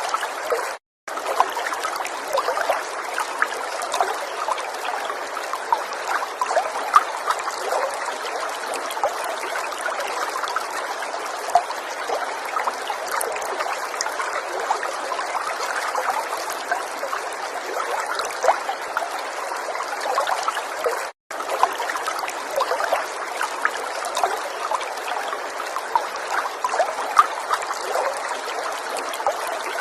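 River water flowing steadily, with many small splashes running through it. The sound cuts out for an instant twice, about a second in and about twenty-one seconds in.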